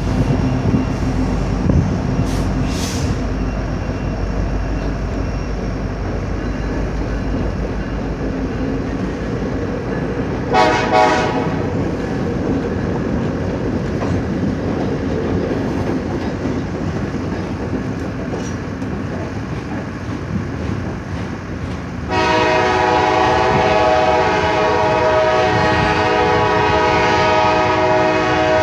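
CN train passing with a steady rumble and clatter of wheels on rail. Its horn sounds one short blast about ten seconds in, then a long, loud blast through the last six seconds or so.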